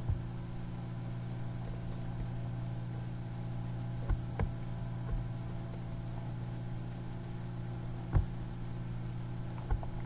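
Computer keyboard keys and mouse buttons clicking a handful of times, the loudest click about eight seconds in, over a steady low hum.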